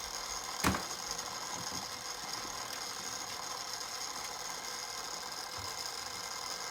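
Battery-powered Hot Wheels track booster whirring steadily as its motorized wheels spin, with one sharp click about a second in.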